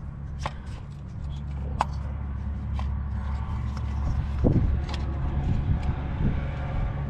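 Metal hand tools clinking and knocking a few times, with one louder knock about four and a half seconds in, over a steady low hum.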